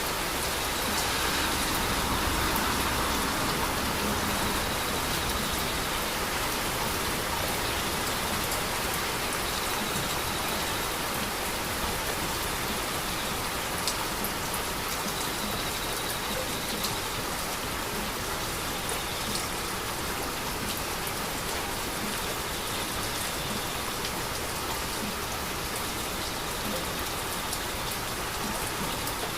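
Heavy rain falling steadily at night, an even hiss with scattered drop taps.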